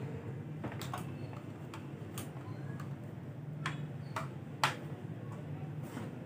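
Scattered clicks and knocks of a ring light and its tripod stand being handled and fitted together, about seven in all, the loudest a sharp knock a little past halfway, over a low steady hum.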